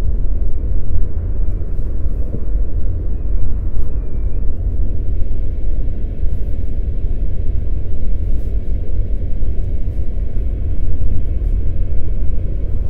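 A steady, loud low rumble, heaviest in the deep bass, with no distinct events.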